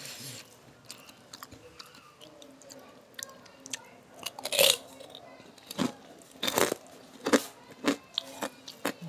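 Close-miked eating of a hand-fed mouthful of rice and jackfruit curry: soft mouth clicks, then a run of loud, sharp crunches from about halfway through as something crisp is chewed.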